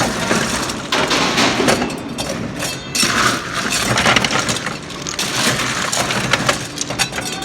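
Manitowoc commercial ice machine running, a steady rushing noise with scattered cracks and clatters.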